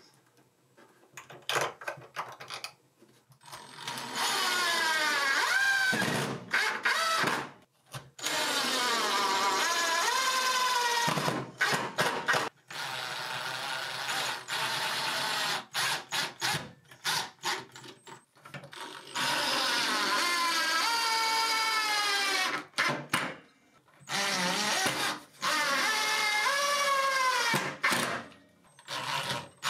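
Cordless drill-driver driving screws through cushion clamps into a wooden stud, in about five runs of a few seconds each, its motor whine rising and falling in pitch as the trigger is eased on and off.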